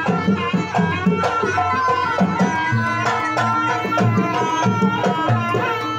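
Live jaranan gamelan music: kendang hand drums play a quick, steady beat of pitched strokes under a reedy wind melody, the slompret shawm, holding high notes, with metal percussion strikes.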